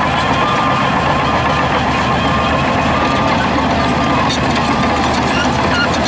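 Heavy diesel engines of earthmoving machines running steadily, with a few short high beeps of a reversing alarm.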